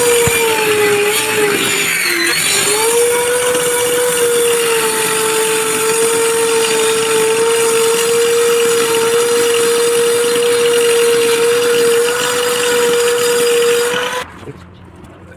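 High-speed electric power tool motor running with a steady whine. About two seconds in it drops in pitch briefly, as if bogging under load in the wood, then recovers. It stops about a second before the end.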